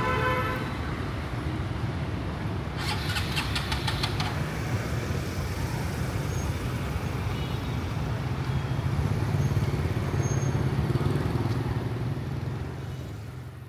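Motor traffic on a city street: a steady low engine rumble of passing vehicles, with a brief rapid rattle about three seconds in, fading out near the end.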